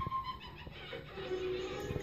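Film soundtrack music playing from a television, with held sustained notes entering about halfway through.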